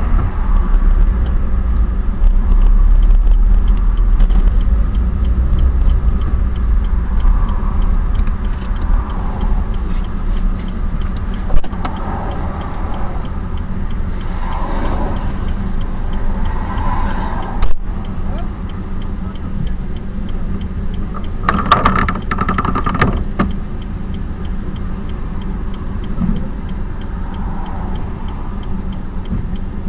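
Car cabin noise picked up by a dashcam: a low engine and road rumble over a steady hum, heaviest in the first several seconds. A couple of sharp knocks break in, and a brief clatter comes a little over 20 seconds in.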